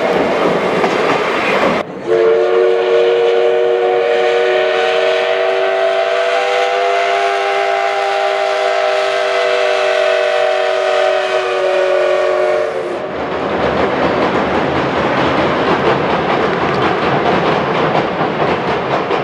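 Steam locomotive whistle sounding one long steady blast of about eleven seconds that sags slightly in pitch just before it stops. Before it, the passenger coaches roll by with a clickety-clack. After it, the train runs on with a steady rumble.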